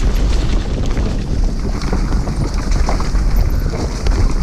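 Wind buffeting the microphone of a bike-mounted camera on a fast downhill mountain bike descent, with tyres running over loose dirt and the bike rattling and knocking over bumps in many quick clicks.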